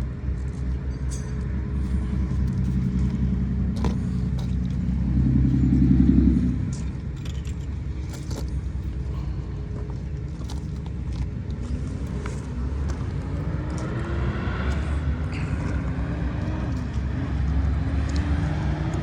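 An engine running steadily at a low pitch, swelling louder for a moment about five to six seconds in. In the second half a higher, wavering tone drifts up and down over it, with scattered light clicks.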